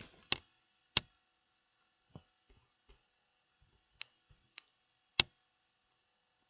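Computer mouse clicking: about half a dozen sharp, irregularly spaced clicks, with the loudest about five seconds in, and a few fainter ones between them.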